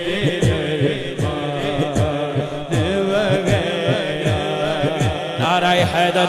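Male reciter singing an Urdu manqabat in the naat style into a microphone, over a steady low drone and a low, pitch-dropping beat of about three strokes a second.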